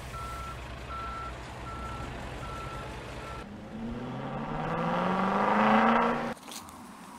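Intro sound effect of a heavy vehicle: a reversing alarm beeping at a steady pitch, about six beeps, over a low engine rumble, then an engine revving up, rising in pitch and growing louder for about three seconds before cutting off suddenly.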